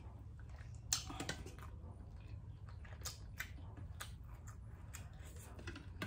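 Close-miked eating sounds: a person chewing steamed squid, with scattered sharp clicks from the mouth and the spoon on the metal tray, the loudest about a second in. A low steady hum runs underneath.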